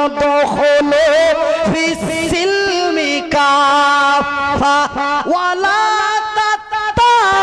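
A man chanting in a melodic, sung style, holding long notes that waver and slide between pitches, with short breaks for breath.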